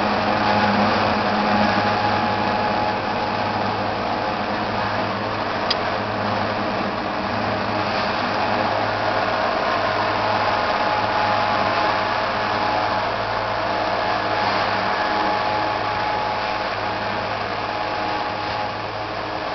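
John Deere 7320 tractor and Gehl 865 forage chopper running steadily while chopping haylage: a constant engine drone with a steady whir of machinery over it. A single sharp tick about six seconds in.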